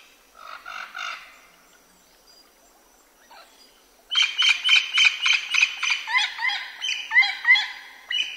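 Birdsong: a few soft chirps about half a second in, then from about four seconds a loud, fast run of repeated chirping notes that turns into short rising whistles.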